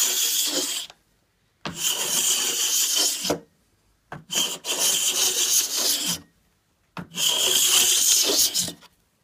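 Cabinet scraper pushed along a quilted maple guitar side, taking thin, wispy shavings: four long rasping strokes about two seconds apart, each lasting one and a half to two seconds with short silent pauses between.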